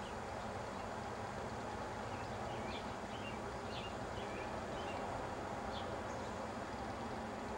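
Short, high bird chirps, about one a second, over a steady hiss and low hum.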